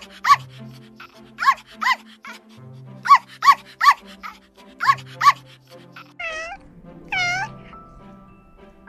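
Puppy yipping in short, high-pitched yaps, mostly in twos and threes, over background music. About six seconds in, two longer kitten meows follow.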